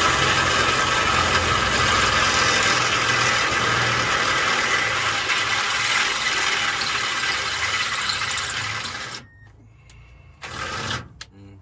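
A power tool motor running loudly and steadily, cutting off about nine seconds in.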